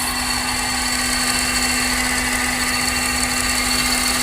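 Honda Odyssey RB1 engine running in low gear with a steady, bearing-like whine from the engine bay. The whine comes from the power-steering pump's metal return line, its retaining clips missing, rubbing against the AC compressor pulley.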